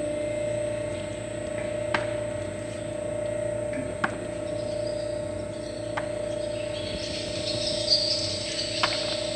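Electric screw oil press running as it cold-presses flax seed: a steady machine hum with a sharp tick about every two seconds, and a brief hissy crackle near the end.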